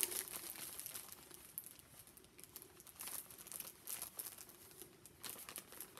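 Faint rustling and crinkling of a bag being closed up and packaged, with scattered light clicks and taps.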